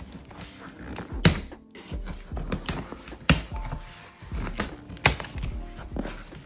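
Cardboard shipping box being handled and opened by hand: scattered sharp knocks and taps with rustling in between.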